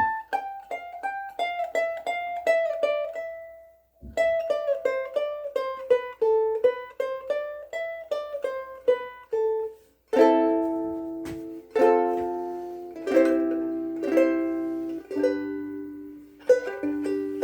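1950s Sherwood/Gretsch soprano ukulele strung with Aquila Sugar strings, played with single picked notes up the fretboard in two descending runs, then strummed chords from about ten seconds in.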